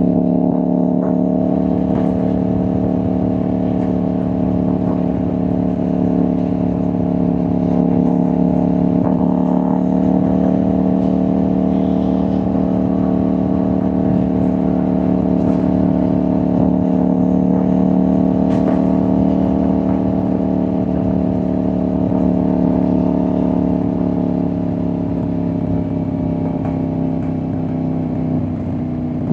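CFMOTO 800NK's parallel-twin engine and exhaust running steadily under way, the engine note holding nearly the same pitch throughout with only slight rises and falls.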